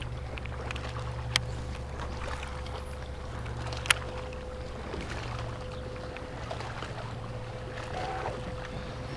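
Steady low hum of a small boat's motor with a faint steady higher tone over it, and two short sharp clicks, one about a second and a half in and one about four seconds in.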